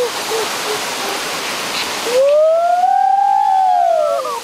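Waterfall rushing steadily. About two seconds in, the rushing cuts out and a long whistle-like tone rises and then falls in pitch.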